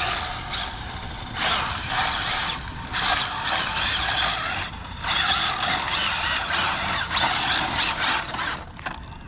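Arrma Infraction V2 RC car driven hard on its 1600KV brushless motor: whirring motor and gear whine with tyre noise, surging and dropping in repeated bursts as it speeds up and backs off, fading near the end.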